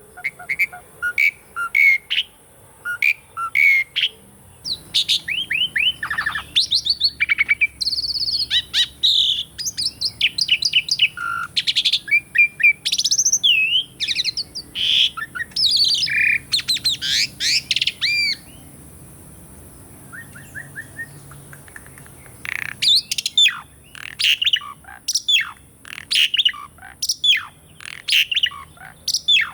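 Pied starling (jalak suren) singing a busy, varied song of quick chirps, rising and falling whistles and chatter. It pauses for a few seconds about two-thirds of the way through, then starts up again.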